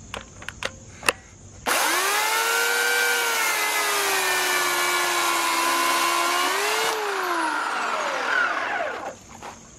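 Corded Oregon electric chainsaw with a self-sharpening chain cutting through a log. The motor starts with a loud whine about two seconds in, its pitch sagging slightly under load as the chain cuts. Near the end the pitch lifts briefly as the cut finishes, then the motor spins down over about two seconds.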